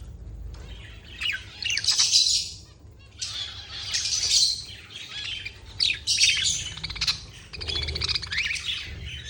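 A flock of budgerigars chattering: many short high chirps, warbles and squawks in irregular bursts.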